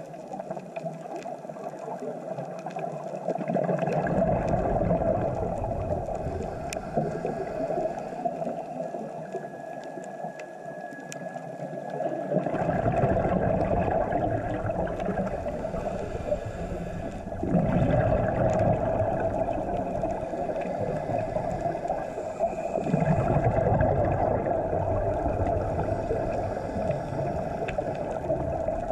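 Scuba regulator breathing, muffled underwater: exhaled bubbles gurgle out in long surges of several seconds, repeating every few seconds between quieter inhales.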